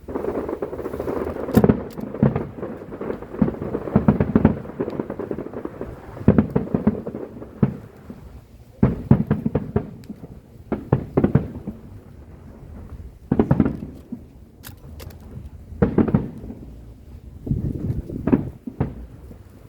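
Aerial fireworks going off in rapid clusters of sharp bangs over a deep rumble. A new bunch of bursts comes every two to three seconds.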